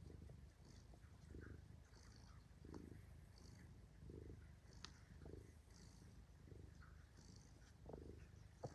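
Domestic cat purring faintly while being stroked: a steady low buzz that swells with each breath, about once every second and a bit. A brief click about five seconds in.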